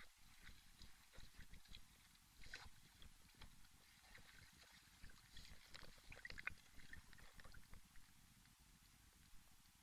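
Faint campfire crackling: irregular small pops and snaps over a low rumble, busiest in the middle.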